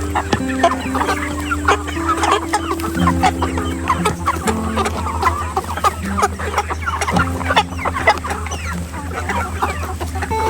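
A flock of chickens clucking and calling continuously, many overlapping short calls. Background music plays under them, with low held notes that change every second or two.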